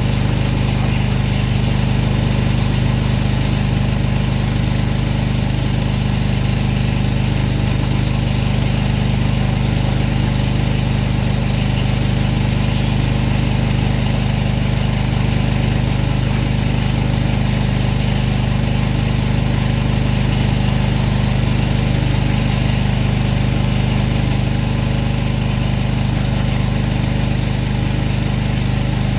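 Gas-powered pressure washer engine running steadily at a constant speed.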